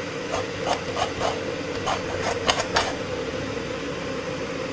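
Half a coconut being scraped against a hand coconut scraper, grating the flesh: a rasping scrape in quick strokes, about three a second, for the first three seconds or so, then steadier scraping.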